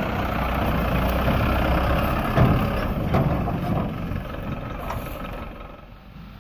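Mitsubishi Canter truck's diesel engine running close by, with two sharp knocks a little over two and three seconds in; the sound then fades over the last couple of seconds.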